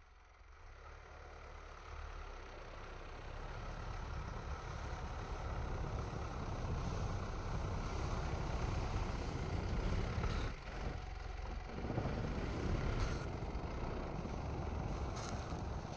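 Mitsubishi Pajero 4's 3.2-litre 4M41 turbodiesel working under load as the SUV ploughs forward through deep snow, growing louder as it comes closer. About ten seconds in it drops briefly, then picks up again.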